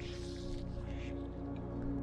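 Soft ambient background music with long held notes.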